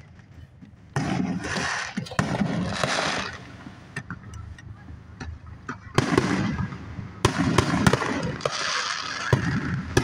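Aerial fireworks shells bursting: a bang about a second in, then, from about six seconds in, a quicker run of bangs and sharp cracks, each trailing off over a second or two.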